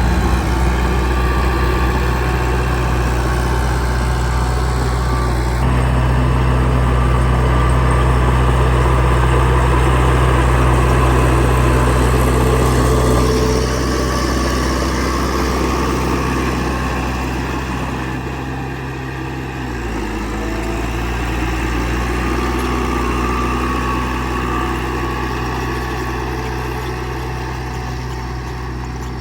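Heavy earth-moving machinery's diesel engine running steadily, its pitch and loudness dropping briefly about two-thirds of the way through and then picking up again.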